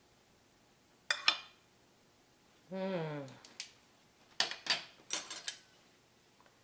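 A serving utensil clinking against dishes as food is dished out: a pair of sharp clinks about a second in, then a run of clinks in the middle and latter part. About three seconds in comes a short vocal hum that falls in pitch.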